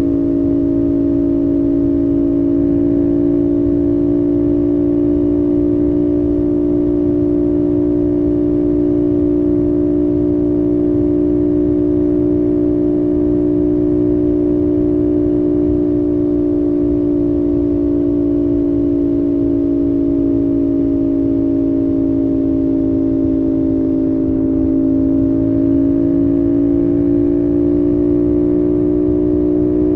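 CFMOTO 450SS parallel-twin engine holding a steady droning note at expressway cruising speed, over low wind and road rumble. Late on, the pitch dips slightly and then climbs back as the throttle is eased and reopened.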